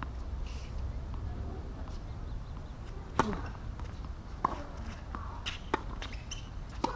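Tennis ball struck by rackets and bouncing on a hardcourt during a rally: four sharp pops about a second and a quarter apart, starting about three seconds in, the first the loudest.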